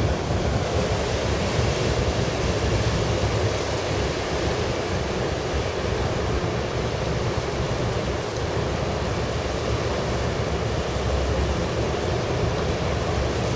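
Steady wash of sea water, with wind buffeting the microphone and a low rumble underneath.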